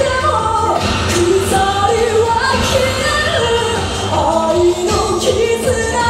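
A song with a voice singing Japanese lyrics over a band, with drum and cymbal hits.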